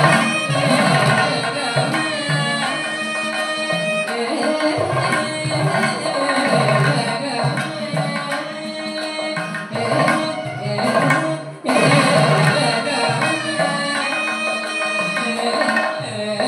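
Chenda drum beaten with a curved stick and the bare hand, under a sustained, gliding Carnatic melody. The music breaks off briefly about two-thirds of the way through, then comes back in full.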